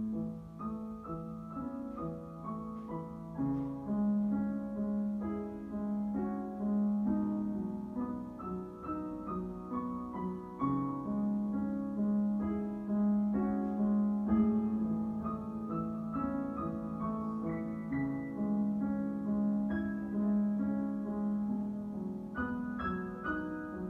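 Background piano music: a melody of separate notes over held low notes.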